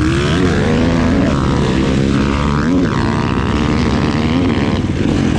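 Dirt bike engine running under way, its pitch rising and falling as the throttle is worked.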